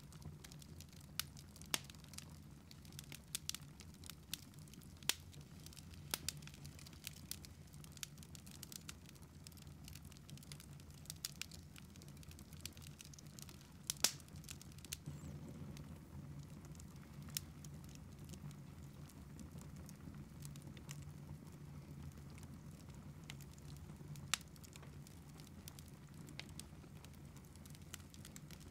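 Wood fire crackling in a fireplace: scattered sharp pops and snaps, busier in the first half with one louder pop about halfway through, over a faint low hum.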